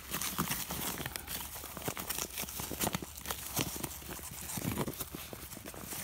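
Foil-laminate bag of two-part expanding fence-post backfill foam crinkling and crackling irregularly as it is squeezed and worked by a gloved hand while the foam is emptied out of it.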